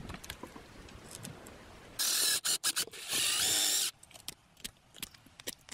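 Small power drill running in two short bursts, about two and three seconds in, the second with a wavering whine; a few light clicks and knocks between and after.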